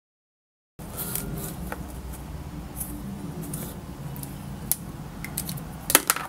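A hand handling a paper desk calendar: scattered light scratches and paper clicks over a steady low hum, with a sharper cluster of clicks near the end.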